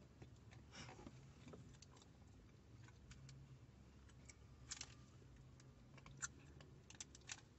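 Near silence with scattered faint clicks from eating: mouth sounds and a paper food wrapper being handled, a few louder clicks near the end, over a low steady hum.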